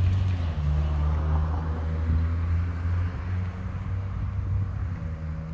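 A car driving along the street, a low engine hum with tyre noise, fading as it moves away.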